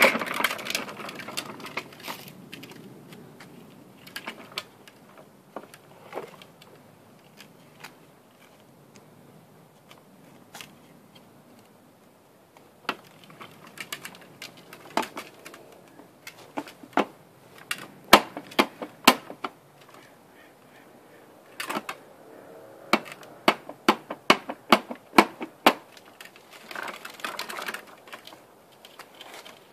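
Hard plastic wheels and body of a toddler's ride-on tricycle clicking and rattling on concrete as it is pushed along: irregular sharp clacks, sparse at first and coming in quick clusters in the second half.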